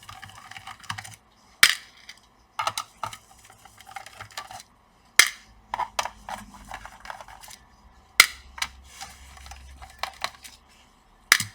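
Small laptop case screws being taken out with a screwdriver and set down, giving four sharp metallic clicks a few seconds apart with fainter rattling and scraping of metal between them.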